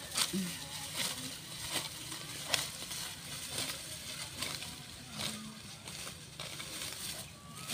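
Fodder grass stalks being cut by hand, a sharp rustling crunch about once a second as each handful is cut.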